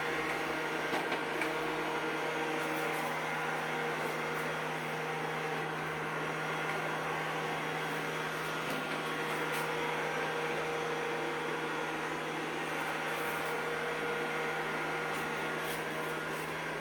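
Robot vacuum cleaner running with a steady motor hum.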